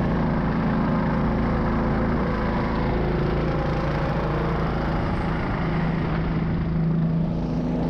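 Homemade snow vehicle's 20-horsepower engine, driven through a CVT, running steadily under load as the machine ploughs through deep snow.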